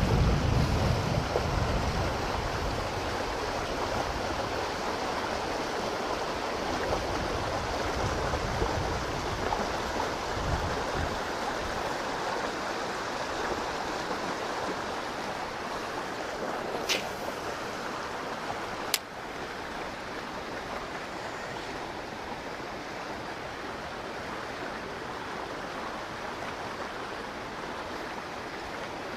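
Steady rushing of flowing stream water, with a low rumble over the first dozen seconds. Two sharp clicks come about two-thirds of the way through, and after the second the rushing is a little quieter.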